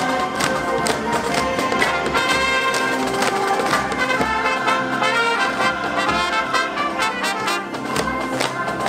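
Music led by brass, trumpets and trombones, over a steady beat.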